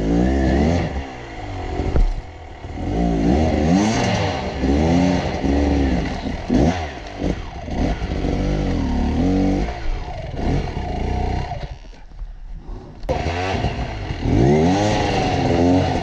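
Dirt bike engine revved in repeated bursts, the pitch climbing and falling back about once a second. The revs die away briefly about twelve seconds in, then pick up again.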